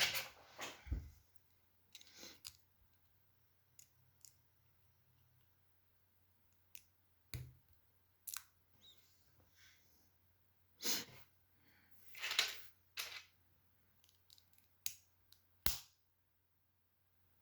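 Plastic LEGO bricks being handled and pressed together: irregular small clicks and short rustles, with a sharper click near the end.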